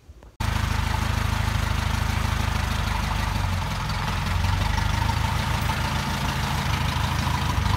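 Farm tractor engine running steadily at low speed as the tractor creeps forward with its front loader. The sound cuts in suddenly about half a second in.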